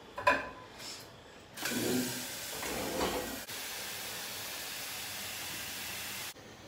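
A sharp knock just after the start, then a kitchen tap runs water into a kettle for about five seconds, a steady hiss that cuts off suddenly as the tap is shut.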